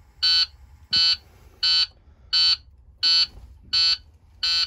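Dashboard warning buzzer of a 2009 IC CE300 school bus beeping with the key on and the engine not yet started. It gives seven short, high-pitched beeps, evenly spaced at a bit under one and a half a second.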